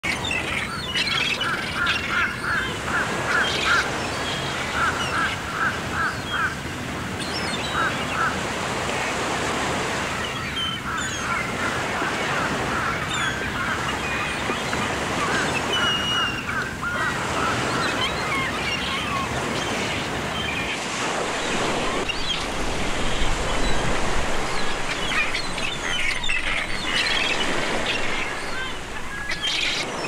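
Birds calling: runs of short, evenly repeated calls, about four a second, and scattered high chirps, over a steady rushing background.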